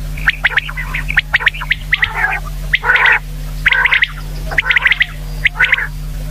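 Common quail calling: quick clusters of two or three short, sharp notes alternating with short, harsher calls, repeated every second or so. A steady low hum runs underneath.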